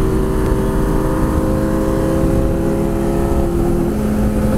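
Sport motorcycle engine running at steady revs at highway speed, with wind rushing over the microphone. Its pitch shifts slightly about three and a half seconds in.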